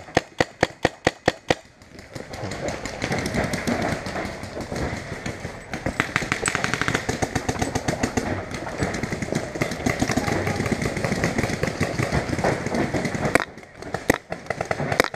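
Paintball markers firing: a rapid string of shots, about six a second, for the first second and a half, then a dense stretch of many overlapping shots with a very fast burst about six seconds in, and a few single shots near the end.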